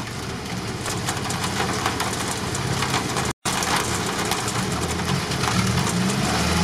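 Engines of off-road 4x4s idling steadily, with rain falling. The sound drops out for an instant a little past the middle, and the engine hum grows stronger near the end.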